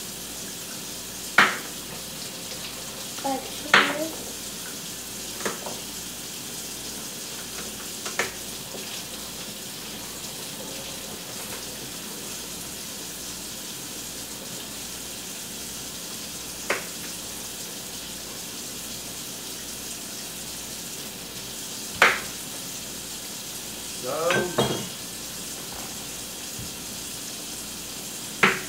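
Kitchen knife cutting carrots on a cutting board: single sharp knocks every few seconds, about seven in all, over a steady hiss.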